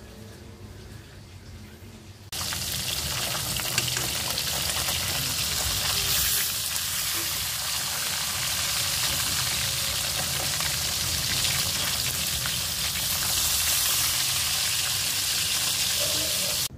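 Tilapia pieces frying in hot oil in a wok: a loud, steady sizzle that starts suddenly about two seconds in, with a metal spatula moving the fish.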